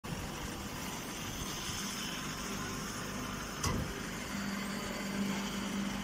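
Wheat straw square baler running: a steady mechanical hum with a single sharp knock about three and a half seconds in.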